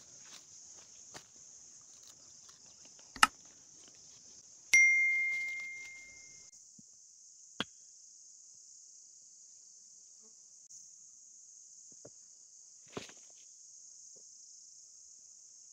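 Steady, high-pitched insect chirring, with a few sharp clicks and knocks. About five seconds in, one loud bell-like metallic ding rings on a single pitch and fades away over about a second and a half.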